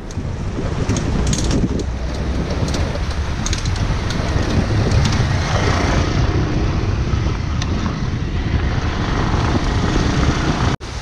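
A KTM motorcycle riding along a gravel road, heard as heavy wind rush on the camera microphone with engine and tyre noise underneath and sharp ticks of gravel during the first few seconds. The sound drops out for a split second near the end.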